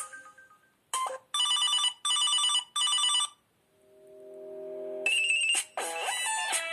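Samsung Galaxy Pocket (GT-S5300) stock ringtones played one after another. A melody dies away, then a short blip and three identical bursts of bright electronic ringing, a low chord that swells up, and a new bright melodic ringtone starting about five seconds in.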